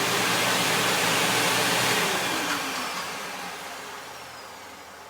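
1999 Hoover WindTunnel Self-Propelled Ultra upright vacuum cleaner motor running loud, then switched off about two seconds in and winding down, its whine falling in pitch as it fades.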